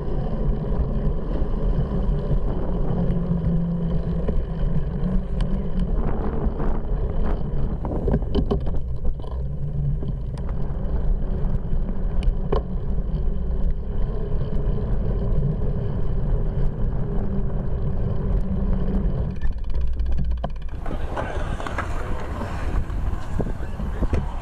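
Wind buffeting the microphone of a handlebar-mounted bike camera along with the rumble of a bicycle rolling on pavement, with a few brief knocks from bumps. About 21 s in it gives way to a brighter, hissier outdoor ambience.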